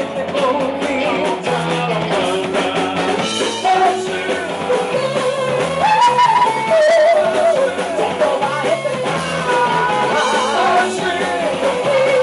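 Live rock band playing: a woman singing lead over electric bass, electric guitar and a drum kit. Her voice holds long, wavering notes about six seconds in and again near the end.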